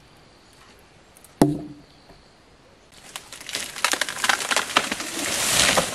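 A single axe stroke into wood about a second and a half in. Then a leafy tree comes down, with twigs and branches snapping and leaves rustling, growing louder until just before the end.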